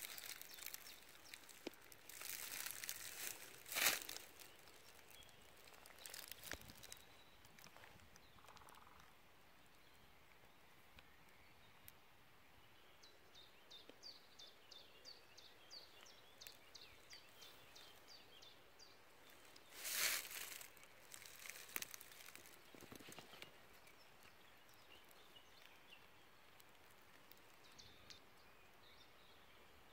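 Footsteps rustling and crunching through dry leaves, grass and brittle tufa near the start and again about twenty seconds in. In the middle a small songbird sings a run of quick, repeated high notes, about three a second, over a quiet woodland background.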